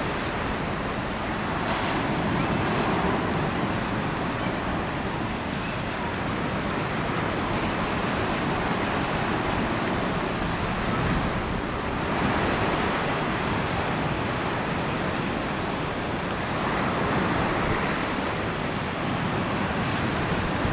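Rough estuary water with waves breaking and washing in the surf, and strong wind blowing across the microphone. The noise swells every few seconds as waves break.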